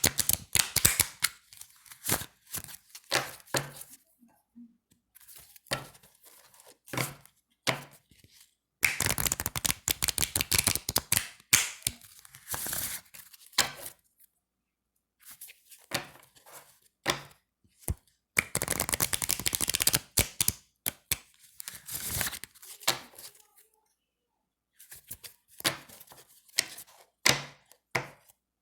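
A deck of thin, slick playing cards shuffled by hand: flurries of fast fluttering card riffles lasting a second or more, mixed with single snaps and taps, with short pauses in between.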